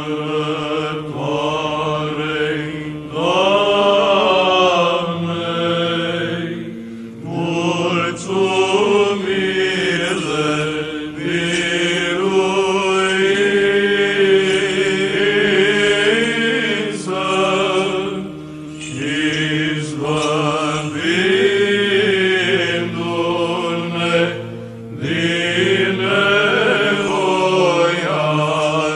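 Male chanters singing Orthodox Byzantine chant: a slow, melismatic melody over a steady held low drone, with short pauses for breath.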